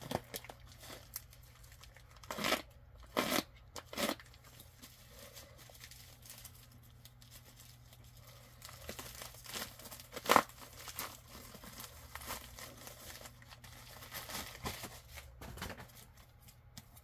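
Paper and plastic shipping packaging being torn open and handled: continual rustling and crinkling, broken by several short sharp tears, the loudest about ten seconds in.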